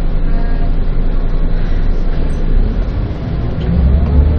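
City bus engine and road noise while the bus is under way. About three seconds in, the engine note drops briefly, then climbs again with a rising whine as the bus accelerates.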